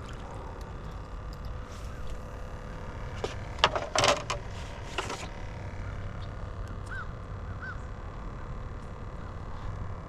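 A few sharp clicks and knocks of fishing tackle being handled in a skiff, loudest about four seconds in, over a steady low rumble. Two short chirps come near the end.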